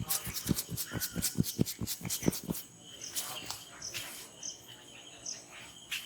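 Massage tapping: rapid, even hand taps on a person's body, about five a second, stopping about two and a half seconds in. Birds chirp and insects keep up a steady high tone behind.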